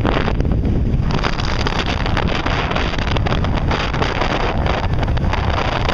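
Wind buffeting the microphone on the deck of a moving passenger ferry, over the steady noise of the boat and the water it crosses.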